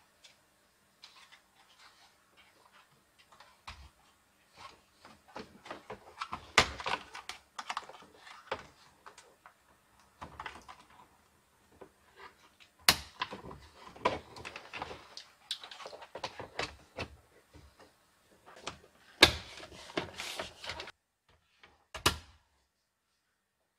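Hard plastic car centre-console trim being handled and pressed into place: an irregular run of clicks, taps and knocks, with a few sharp snaps, the last one as the console is pushed down near the end.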